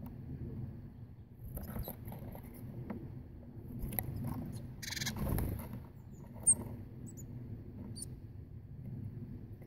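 Blue tits and great tits at a bird table: wing flutters as birds land and take off, light pecking taps, and a few short, very high thin call notes, the sharpest about six and a half seconds in. Low wind rumble on the microphone runs underneath.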